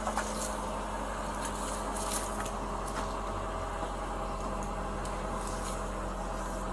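Small hatchback car's engine idling steadily, a low even hum heard from just outside the car, with a few faint clicks.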